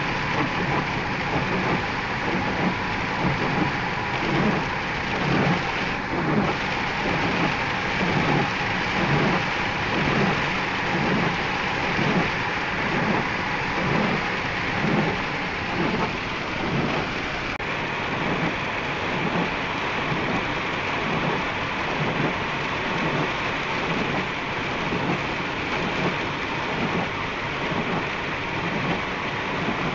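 Heavy rain falling on a car driving on the highway, with a dense steady hiss over road and tyre noise. A regular low beat comes a little under twice a second.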